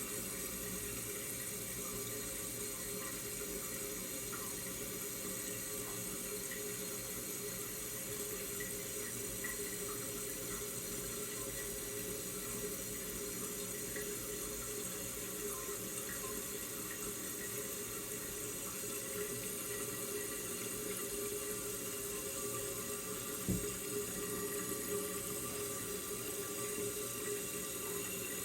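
Toilet cistern refilling: a steady rush of running water with a faint hiss, and one brief knock near the end.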